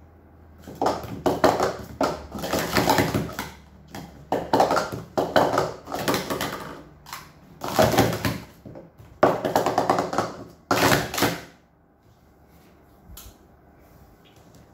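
Plastic sport-stacking cups being rapidly stacked up and down on a stacking mat: a fast, uneven run of clacks and slides lasting about ten seconds, then stopping abruptly.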